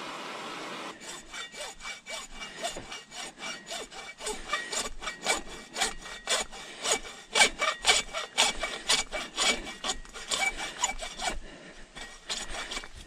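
Hand saw cutting one-inch PVC conduit: a long run of rasping back-and-forth strokes, two to three a second, starting about a second in and stopping near the end.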